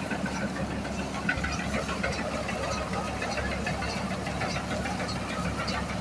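Tractor diesel engine running steadily while pulling a Garud round baler, with a dense, even ticking rattle from the baler's machinery as it picks up straw.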